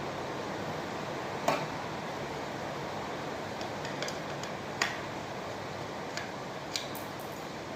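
Sharp metal clicks and clinks of tools and screws while a ceiling fan blade is being screwed onto the motor, three louder ones a few seconds apart, over a steady hiss.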